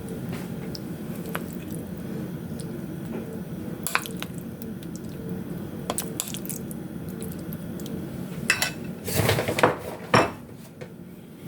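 Metal kitchenware clinking and clattering over a steady low hum, with a few light clicks and then a louder burst of clatter near the end.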